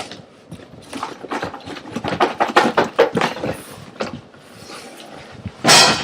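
Small parts and their packaging being handled: irregular clicks and knocks with rustling, and one louder rustle near the end.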